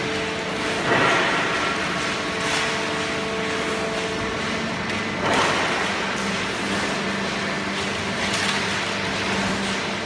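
Steady mechanical running of a horizontal cardboard baler and its feed conveyor. Cardboard scraps rustle and swish each time an armful is tossed onto the conveyor, loudest about a second in and about five seconds in.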